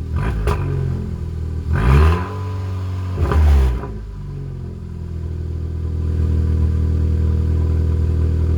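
2017 Hyundai Elantra Sport's 1.6-litre turbo four-cylinder exhaust, straight-piped through a gutted stock muffler, blipped three times in quick short revs, then settling to a steady idle.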